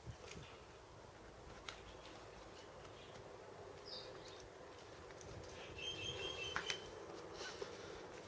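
Faint room tone in a workshop: a steady low hum with a few small clicks, and some brief high chirps about six to seven seconds in.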